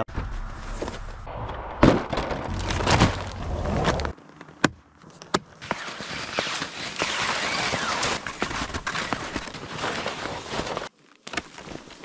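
A rumbling, noisy stretch with two sharp knocks for about the first four seconds. Then skis sliding over snow make a steady hiss, with a few sharp clicks from ski poles planting.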